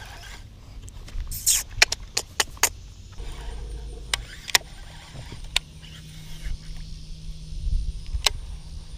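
Scattered sharp clicks and taps from handling a baitcasting rod and reel while retrieving a frog lure, over a low rumble. A steady low hum comes in about halfway through.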